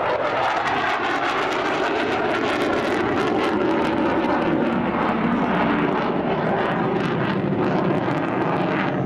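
MiG-29 fighter's twin RD-33 turbofan engines at display power as the jet passes and pulls up: loud, steady jet noise with a ragged crackle.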